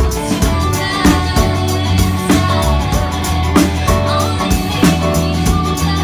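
Live band playing a song with a steady drum-kit beat, electric guitar, bass guitar and Nord Stage keyboard, and a woman singing lead.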